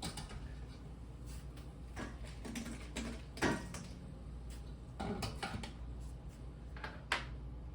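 Kitchen clatter from utensils and dishes being handled: scattered clinks and knocks, irregularly spaced, the loudest about three and a half seconds in, over a steady low hum.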